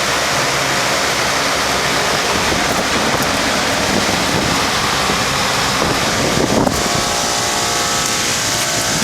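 Bard wall-mount heat pump running in cooling mode: a steady rush of air from its condenser fan over the running compressor. About two-thirds of the way in the rush eases slightly and a steady hum comes through.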